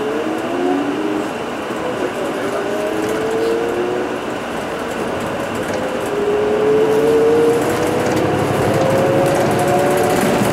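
Interior running sound of an Isuzu Erga Hybrid QSG-LV234N3 city bus on the move: drivetrain and road noise, with a whine that rises slowly in pitch twice as the bus gathers speed.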